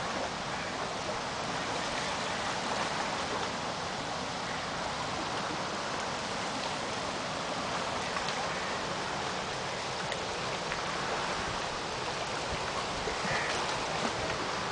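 Steady rush of river water washing against a rocky bank.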